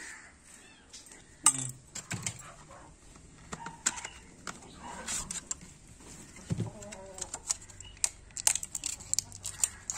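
Scattered light clicks and taps, thicker near the end, from handling a stainless-steel bowl holding a dog's tablet and a piece of liver.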